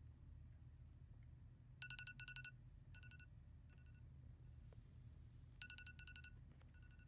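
iPhone alarm going off faintly: short, high electronic beeps in a repeating pattern, a quick cluster followed by two single beeps. It starts about two seconds in and comes round again about four seconds later, over a steady low hum.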